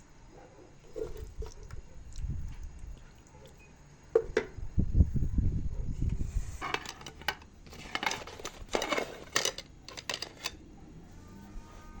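Dishes and utensils clattering: low bumps of handling, then a run of sharp knocks and scrapes from about halfway in.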